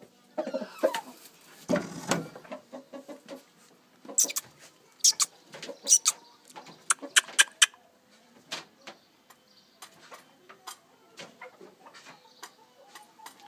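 Aseel rooster making low clucking calls, with a burst of sharp clicks and knocks in the middle, the loudest sounds here, then scattered lighter taps.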